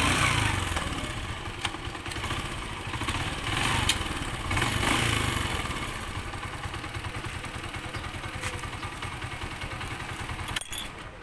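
Motorcycle engine running with wind noise as the bike rolls along and slows, then idling steadily at a stop. A sharp click comes near the end, and the engine sound drops after it.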